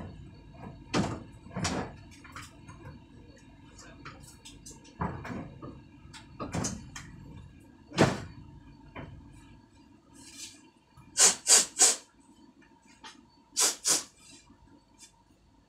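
Irregular knocks and scrapes from hands working inside a metal display freezer cabinet, over a low steady hum. In the second half come short, sharp hissing bursts, three in quick succession and then two more.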